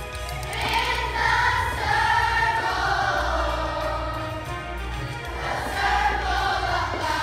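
Large group of children singing together as a choir over accompanying music, with long held notes; the singing swells about a second in.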